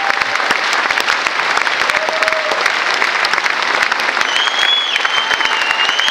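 Large theatre audience applauding, a dense steady clapping. From about four seconds in, a high shrill whistle rises above it.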